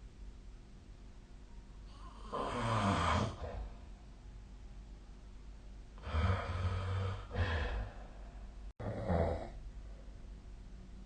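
A sleeping person snoring. There is one long snore about two seconds in, a pair of snores around six to seven and a half seconds, and another just after a brief dropout in the recording near nine seconds.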